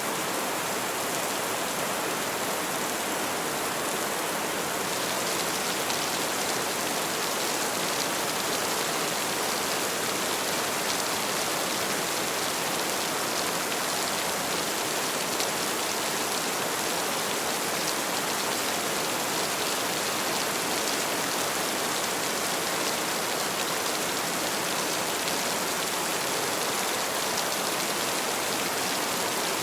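Heavy rain falling steadily, a dense even hiss of drops on a surface. About five seconds in, the patter of individual drops becomes crisper and brighter.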